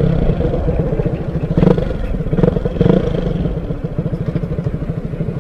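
Motorcycle engine running steadily under way, its firing pulses plainly heard, with a few brief knocks or clatters in the first three seconds.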